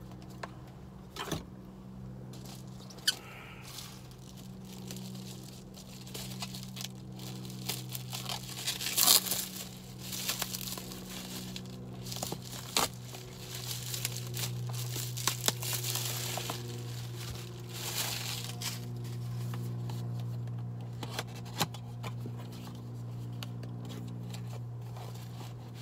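Packaging torn and crinkled by hand as a tobacco pipe is unwrapped from its shipping box, in irregular rustles with sharp clicks and crackles, busiest in the middle.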